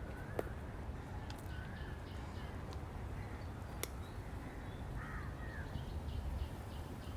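Outdoor birdsong with crow-like caws scattered through, over a steady low background rumble, and two sharp clicks, one about half a second in and one about four seconds in.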